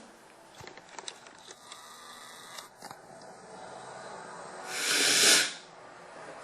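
A person blowing their nose hard once, a noisy blast of about a second that builds and then stops, near the end. Before it there are faint scattered clicks and rustles.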